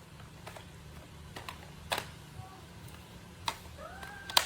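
A handful of separate sharp metallic clicks as sockets and a wrench are handled and fitted together, the loudest about two seconds in and just before the end. Near the end a cat begins to meow.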